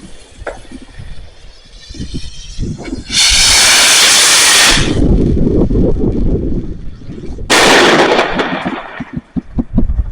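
Fireworks going off: a scatter of bangs and crackling pops, with two loud hissing bursts, one about three seconds in and one about seven and a half seconds in.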